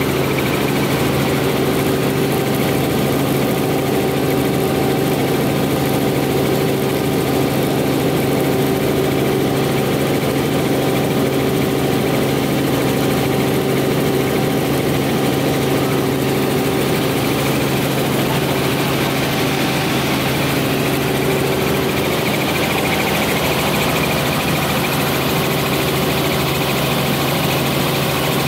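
Helicopter in flight heard from inside the cabin: a steady drone of engine and rotor with a constant hum at several fixed pitches.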